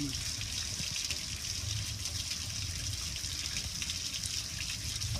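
Water from a garden hose showering steadily over a gas grill and splattering onto the concrete below.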